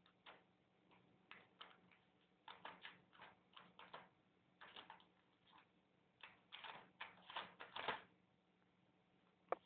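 Irregular light clicks and crinkles of a plastic prawn tray and its torn film lid as a cat hooks prawns out with its paw, in two busy spells a few seconds apart, with one sharp click near the end.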